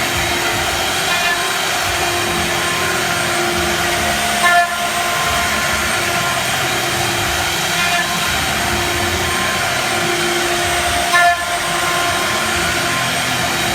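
CNC router spindle running steadily while its cutter engraves a wooden ball, a constant whine over a hiss, with brief louder surges about four and a half seconds and eleven seconds in.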